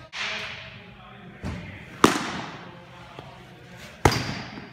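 Baseballs smacking into leather gloves: several sharp pops, each echoing off a large indoor hall, the loudest about two seconds in and another near the end.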